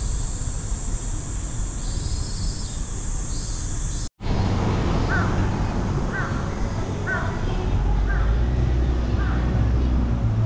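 A steady high insect buzz that breaks off about four seconds in, then a crow cawing five times, about once a second, over a low background rumble.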